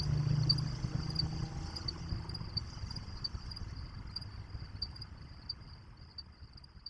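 Insects trilling, a steady high-pitched pulsing, over a low rumble. Everything fades out near the end.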